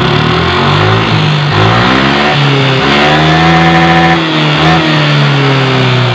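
Yamaha NMAX's single-cylinder liquid-cooled scooter engine revved by the throttle, the revs climbing for about three seconds and then easing back down. Its knocking rattle gets faster and louder as the revs rise rather than disappearing, which the mechanic takes as a sign that the fault likely lies in the cylinder head or block rather than the CVT.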